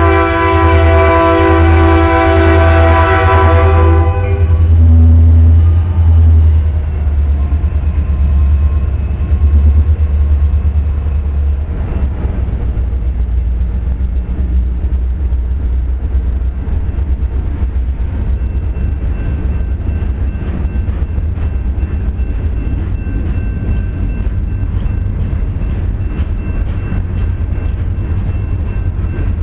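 Leslie RS3K three-chime air horn on a BNSF freight locomotive, blowing a loud chord that cuts off about four seconds in. The locomotive's diesel engine runs past with a low rumble, and then freight cars roll through the grade crossing with a steady rapid clicking of wheels on the rails.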